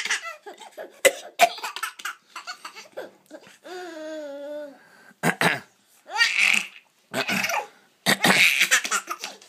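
A person coughing in a series of short, harsh bursts, mixed with laughter; the coughing is densest near the end.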